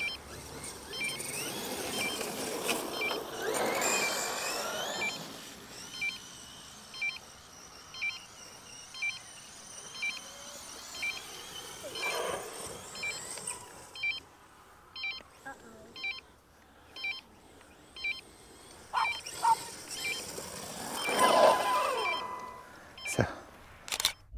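Electric RC buggy's brushless motor whining up and down in pitch as it drives, in two spells. A short high electronic beep repeats about once a second throughout.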